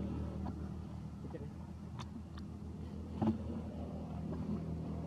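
Steady low motor hum like a running engine, with a few light crackles, the sharpest about two and three seconds in, such as dry leaves being stepped on.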